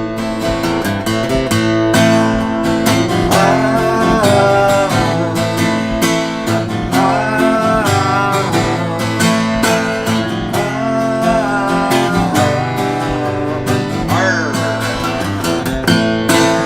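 Background music: an instrumental break in a folk song, with strummed acoustic guitar under a lead melody whose notes waver and slide.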